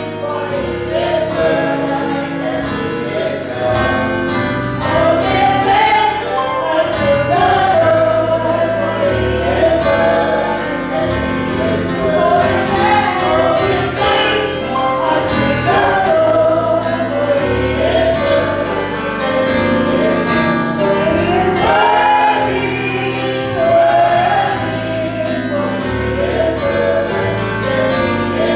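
Church choir singing a gospel song with band accompaniment and a steady bass line.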